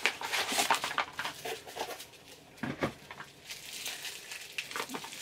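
Packing wrap crinkling and rustling as a small parcel is unwrapped by hand, busiest in the first two seconds, with a few sharp crackles a little before the three-second mark.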